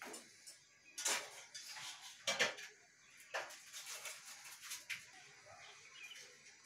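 Occasional sharp knocks and clatters, five or so spread out about a second apart, over faint background noise.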